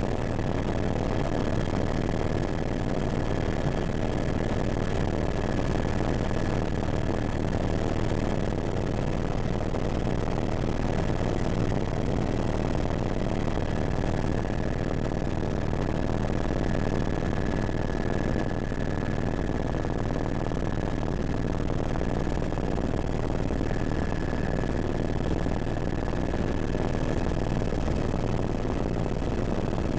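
Helicopter running steadily: a dense, even engine and rotor noise with a thin, steady high whine on top.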